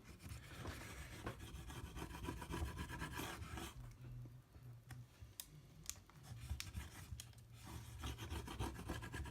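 Irregular rubbing and scraping on an iPad mini frame as it is scrubbed clean of old adhesive and dust with alcohol wipes, with scattered small clicks.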